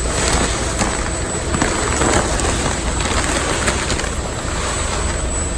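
Steady mechanical rumble and hiss of brewhouse equipment running during the mash, with a few faint knocks.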